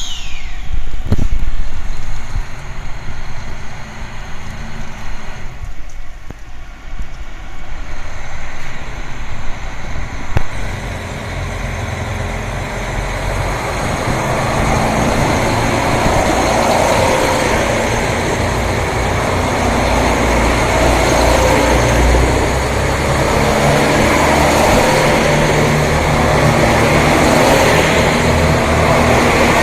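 261-series diesel express train's engines pulling away from the platform, building steadily louder from about eleven seconds in as it accelerates. Strong gusting wind buffets the microphone in the first several seconds.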